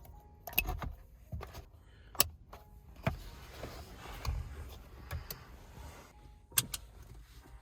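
Sharp plastic clicks and knocks with handling rustle in between, as the airbag's electrical connectors are plugged in and the airbag module is clipped into the steering wheel. The loudest clicks come about two seconds in and near the end.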